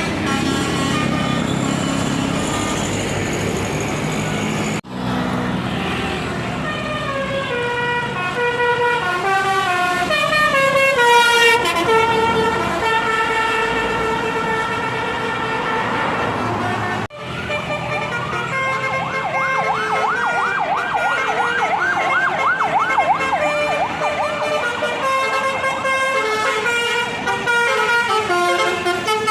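Tour bus basuri horns playing multi-note melodic tunes, the notes stepping and sliding down in pitch. The sound breaks off suddenly twice, about five seconds in and again past the middle. After the second break, a fast warbling siren-like tone sounds over the horn melody for several seconds.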